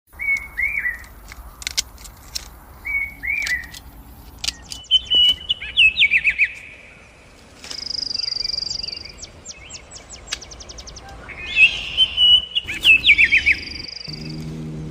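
Songbirds chirping and calling: short sliding whistled notes, quick trills, and one long steady high-pitched note about halfway through. A low hum starts near the end.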